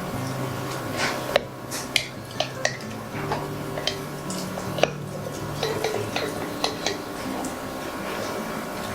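A utensil stirring thick sourdough starter in a jar, knocking and scraping against the jar's sides in a dozen or so irregular clinks.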